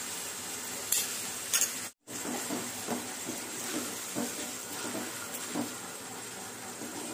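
Tomato puree and green masala paste sizzling in a steel pan while a steel spoon stirs and scrapes it, with light irregular clinks of metal on metal. The sound cuts out briefly about two seconds in.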